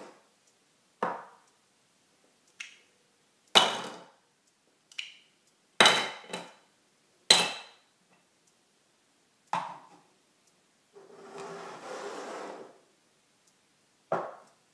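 Irregular hard knocks, about eight of them, the loudest three with a short ringing tail. Near the end comes a rustling scrape lasting about two seconds.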